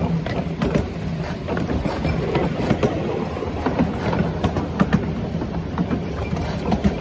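Train running along the track: a steady rumble with quick, irregular clatter of the wheels over the rails.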